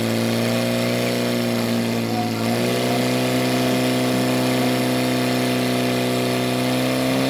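Portable fire pump engine running hard at high revs, feeding water into the delivery hoses during a fire-sport attack. Its steady note steps up in pitch about two and a half seconds in and rises slightly again near the end.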